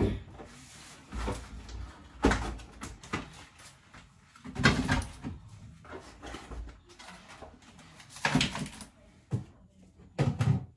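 Groceries being unpacked: a string of knocks and short rustles as packages are handled, pulled from a woven shopping bag and set down on a kitchen worktop, with a fridge door being opened near the end.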